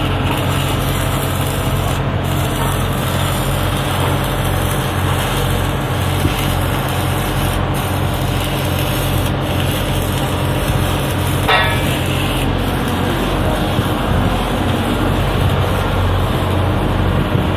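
Steady drone of welding equipment as a steel pipe is welded, with a low hum and a faint crackle throughout and a brief higher whine about eleven seconds in.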